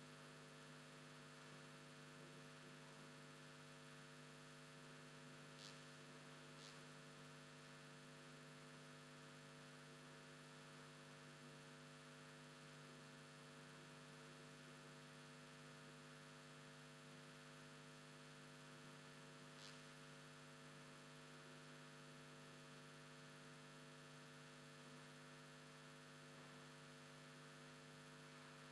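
Near silence: a faint, steady electrical hum in the audio feed, with three faint clicks about six, seven and twenty seconds in.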